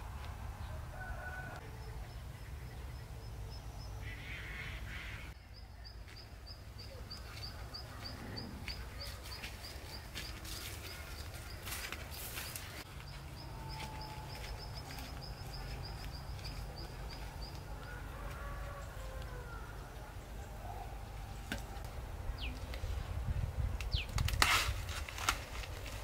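Birds calling over a steady low background rumble, with a high chirp repeated about three times a second for much of the time. Near the end, loud rustling of corn leaves and snapping as ears of corn are broken off the stalks.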